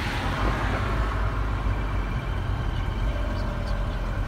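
Steady low rumble of vehicle engines and road traffic, heard from inside a car, with a swell of noise in the first second.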